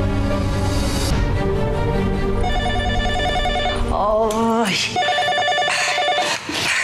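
Cordless home telephone ringing with a pulsed electronic ring in two bursts, one about two and a half seconds in and another about five seconds in, over soft sad background music that fades out. A short vocal sound falls between the rings.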